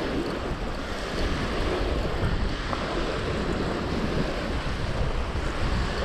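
Strong gusty wind buffeting the microphone: a steady noisy rush with a heavy, uneven low rumble.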